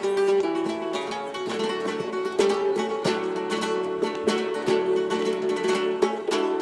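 Music on a plucked string instrument, strummed in quick strokes over ringing chords.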